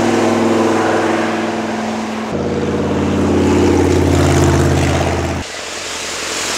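Classic car engines running as the cars drive past: a steady, loud engine note whose pitch changes abruptly about two seconds in and cuts off about five seconds in, leaving a hiss.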